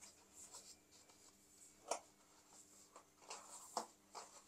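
Faint rustling and light taps of a hand handling a cardboard camera box and its insert, with a sharper tap about two seconds in.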